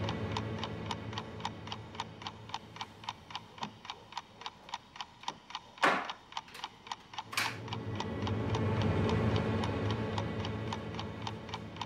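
Steady clock-like ticking, about three ticks a second, over a low swelling drone, broken about halfway through by two brief rushing swells, the first the loudest.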